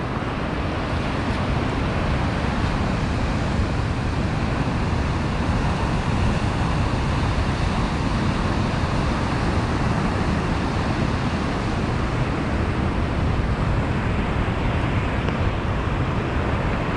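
Steady rushing of water and surf where an opened lagoon drains through a channel into the sea.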